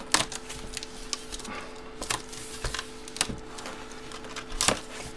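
Hands opening a cardboard box of 16x20 photos: scattered sharp taps, knocks and rustles as the lid and packaging are handled, the loudest near the start and again near the end, over a steady low hum.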